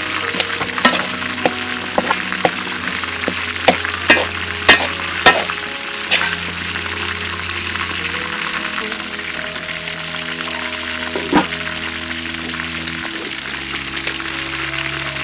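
Fried rice sizzling in a steel wok as it is stir-fried, with a metal spatula clicking and scraping against the pan, sharply and often for the first half and only once more later. A soft background of sustained musical notes runs underneath.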